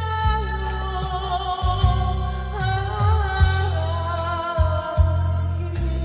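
Slow Korean trot ballad: a long-held, sliding melody over a steady beat with regular drum hits.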